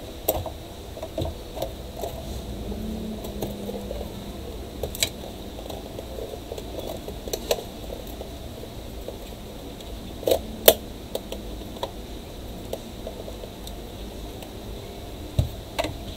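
Thin metal pry tool working along the seam of a plastic portable speaker housing: small scattered clicks and scrapes of metal on plastic, with a few sharper clicks, two close together just past the middle and two more near the end.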